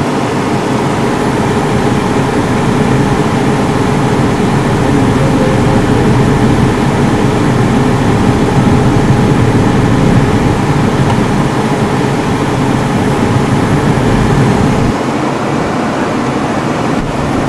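Car engine and road noise heard inside the cabin, a steady low rumble as the car moves off, easing slightly near the end.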